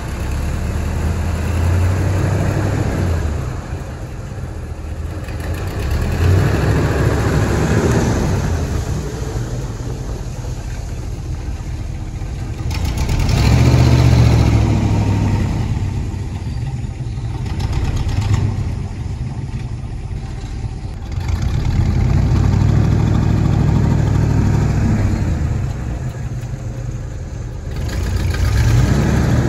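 1968 Chevrolet C10 pickup's engine running while the truck is driven, its sound swelling several times as it accelerates and easing back in between.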